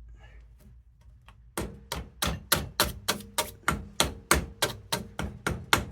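A hand hammer striking metal over and over, about four even blows a second with a short metallic ring, starting about one and a half seconds in.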